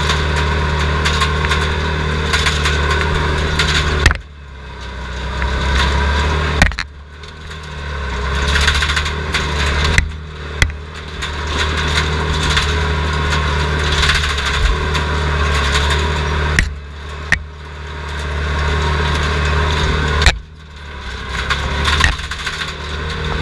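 Heavy machine's diesel engine running hard, heard from inside its caged cab, with a clatter of machinery and brush. The higher noise falls away sharply a few times and builds back. Several sharp clanks are mixed in.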